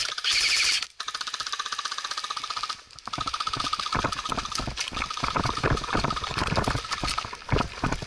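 An airsoft rifle fires full-auto, a fast even rattle of shots that stops about a second in. Fainter rapid fire runs on until about three seconds. Then come quick irregular footsteps through forest litter and rattling gear as the player runs.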